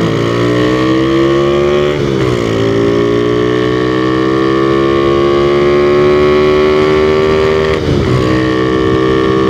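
Honda Revo Absolute single-cylinder four-stroke motorcycle fitted with an aftermarket Tsukigi exhaust, accelerating on the road. The engine note climbs steadily in pitch, drops at a gear change about two seconds in, climbs again for several seconds, and drops at another shift near the end.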